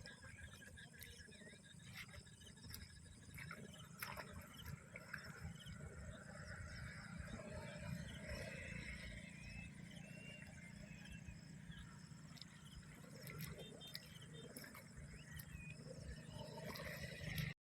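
A faint chorus of breeding yellow Indian bullfrogs croaking at a rain-filled pond, with a few higher chirps above it.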